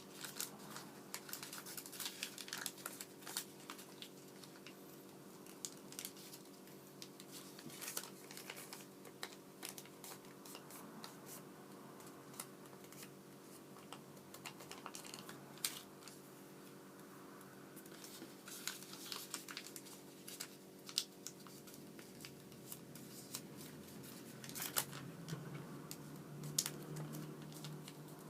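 Origami paper being folded and creased by hand: irregular crinkling and rustling with sharp little crease clicks, over a faint steady hum.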